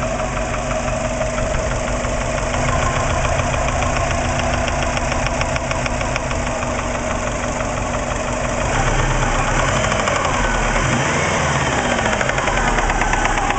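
Subaru Impreza EJ20 flat-four engine running with a rapid, varying ticking knock from the top of the engine; the revs rise and fall in the second half. The cause of the knock is unknown to the owner, who reports 30 psi oil pressure and no metal in the drained oil.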